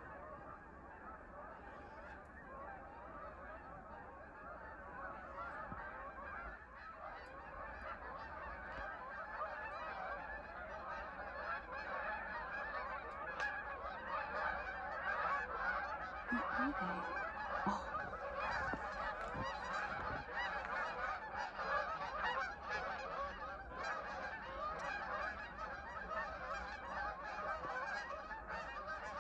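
A large flock of geese honking, many calls overlapping in a continuous chorus that grows steadily louder.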